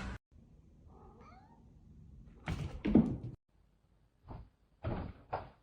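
A cat meowing in a few short calls: a faint one about a second in, a louder one around the middle, and brief ones near the end.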